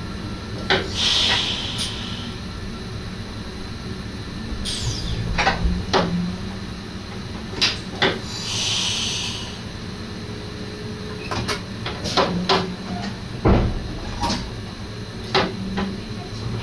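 Irregular clicks and knocks in the cab of an NS SGM Sprinter electric train over a low steady rumble, with two short hisses about a second in and about eight seconds in; the heaviest knock comes near the end.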